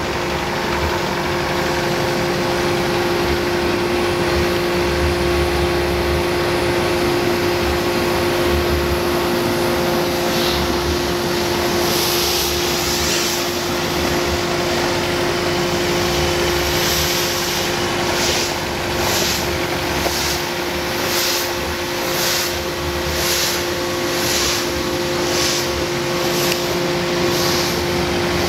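Kubota M8200 tractor's four-cylinder diesel engine running at a steady speed as the loader tractor drives, its note holding one pitch throughout. From about a third of the way in, a high hiss pulses roughly once a second over the engine.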